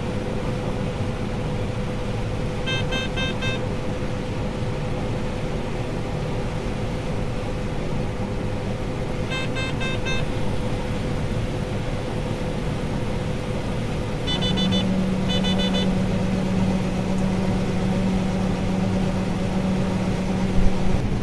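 Steady engine and machinery hum heard from inside a combine's cab. Short bursts of rapid electronic warning beeps come about three seconds in, again about ten seconds in, and twice more around fourteen to sixteen seconds in. A low steady tone joins the hum about fourteen seconds in and holds.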